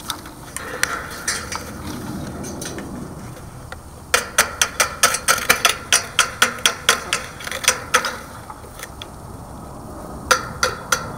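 A chicken pecking right at the microphone: a quick run of sharp taps, about five a second, for some four seconds, then two more taps near the end.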